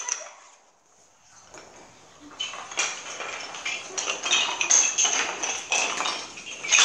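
Wooden yut sticks clattering and knocking on a parquet floor during a game of yunnori: a near-silent moment near the start, then a run of short clicks and knocks.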